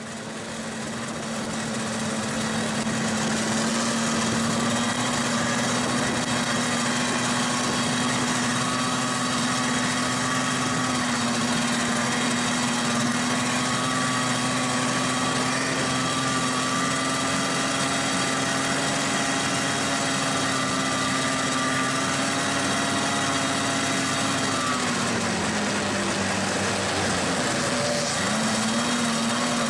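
Vintage snowmobile's two-stroke engine running steadily at trail speed, heard from aboard the sled. It fades in over the first couple of seconds. About 25 seconds in the engine slows, dropping in pitch, and it picks up again near the end.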